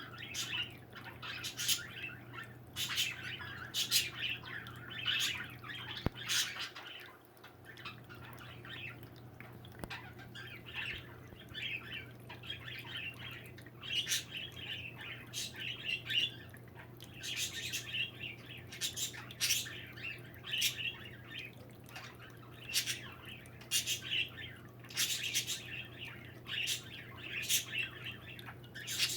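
Small birds chirping and squawking over and over, short calls coming every second or so in clusters, over a steady low hum.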